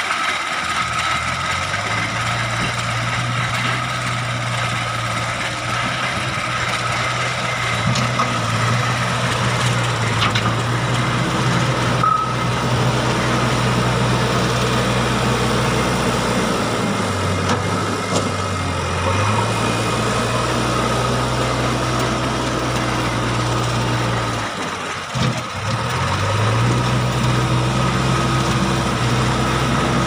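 JCB backhoe loader's diesel engine running under load while the front bucket pushes and levels the ground, its engine speed stepping up and down, with a brief dip near the end. A faint steady high whine runs under it.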